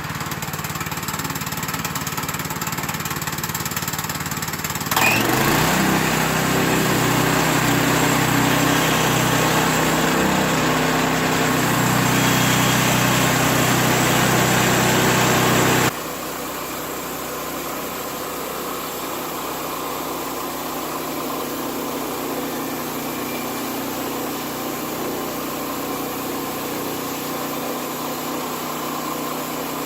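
Portable bandsaw sawmill's gas engine running. About five seconds in it revs up and runs louder with a rushing noise as it saws a pine log, then drops suddenly, near the middle, to a quieter steady run.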